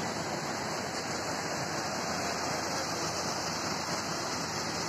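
Flash-flood water rushing steadily through a channel, an even, continuous wash of noise.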